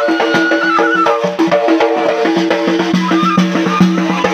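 Chaoui folk music: a gasba reed flute playing a melody over quick bendir frame-drum beats, with steady held low notes underneath.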